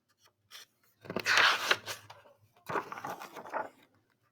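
Paper page of a picture book being turned: two rustling swishes, the second starting a little over a second after the first ends.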